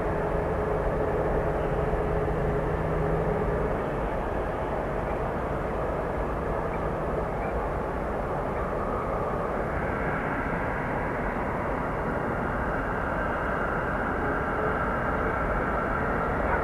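Airbus A330's jet engines running: a steady rush, with a higher whine joining in about ten seconds in.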